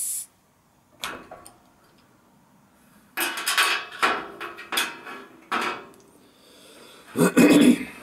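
A beer bottle's crown cap coming off with a short hiss of escaping gas right at the start. Then a scattering of clicks, knocks and clatter as the cap, bottle and a glass are handled on a table, loudest near the end.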